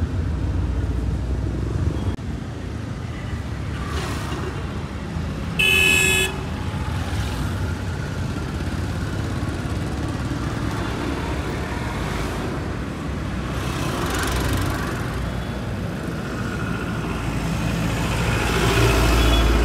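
Road traffic rumbling past close by, with one short vehicle horn honk about six seconds in. Near the end a truck's engine grows louder as it drives by.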